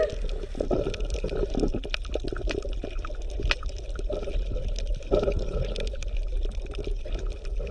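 Underwater water sound: irregular bubbling and gurgling with many scattered faint clicks.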